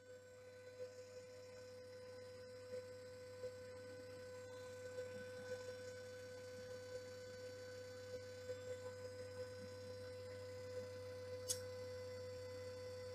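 3D printer running as it extrudes filament, its stepper motors and fan giving a faint, steady hum at a single pitch. Small irregular ticks sound over it, with one sharper click near the end; the hum fades in over the first two seconds.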